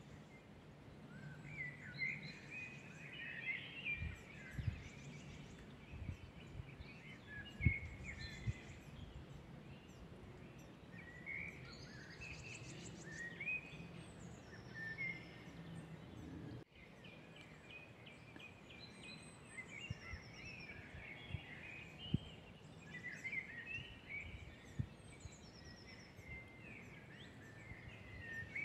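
Several woodland songbirds singing and calling at once, a dense mix of short chirping phrases with some thin, high trills. A few soft low thumps come through, one louder about a third of the way in.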